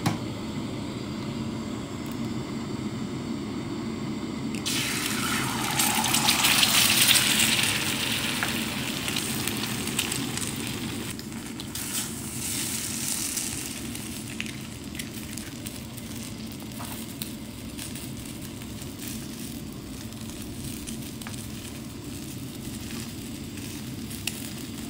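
Eggs sizzling in hot cooking oil on a seasoned steel griddle pan. A loud sizzle starts suddenly about five seconds in as the first egg goes in, swells again around twelve seconds as a second egg is cracked in, then settles to a softer steady sizzle over a low hum.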